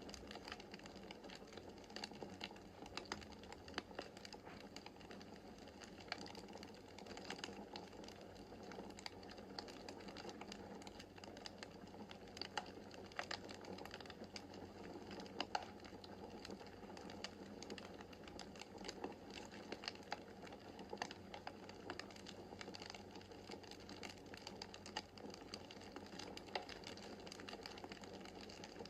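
Wood fire crackling in a fireplace: many small, irregular snaps and pops over a soft, steady hiss of the flames.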